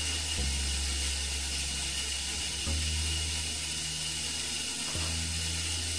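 Steady low background hum under a constant hiss, the hum shifting a few times.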